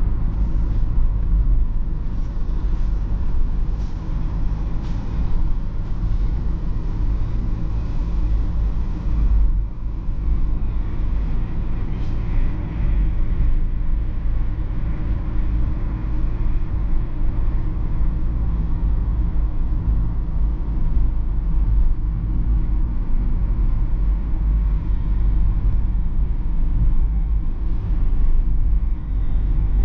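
Steady in-cabin rumble of a BMW E46 320d cruising: tyre and road noise mixed with its 2.0-litre four-cylinder turbodiesel running at an even speed.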